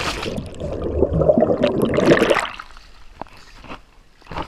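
Lake water churning around a submerged body-worn camera just after a jump in, a loud rushing that dies away about two and a half seconds in.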